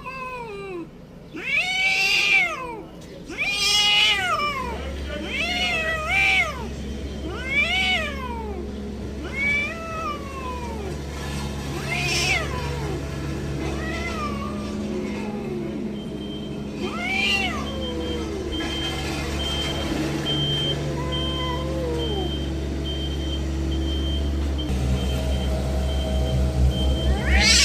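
A cat meowing again and again with long, drawn-out meows that rise and fall in pitch. They come every couple of seconds at first and more sparsely later. A steady low hum runs underneath.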